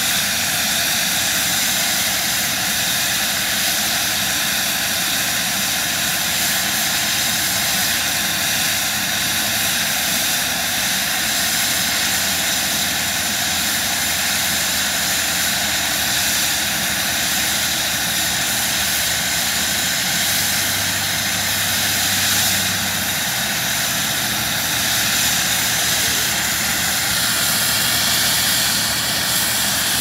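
Twin-turbine Eurocopter Dauphin helicopter running on the ground with its rotor turning: a steady, loud turbine whine and rush of rotor noise.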